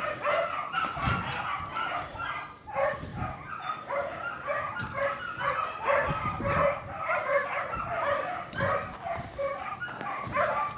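A dog barking over and over in quick, short barks.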